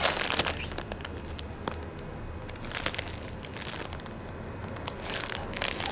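Clear plastic wrap crinkling around plush cushions as hands press and handle them close to the microphone, in three bouts: at the start, about halfway through, and near the end.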